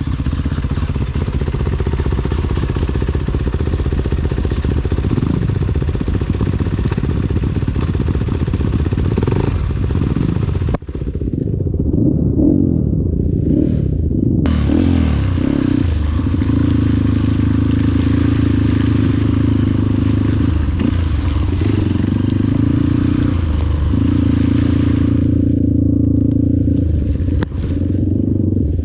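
Trail dirt bike engine revving unevenly, the revs rising and falling, with a couple of stretches where the throttle is held steady for a few seconds, and some clatter from the bike.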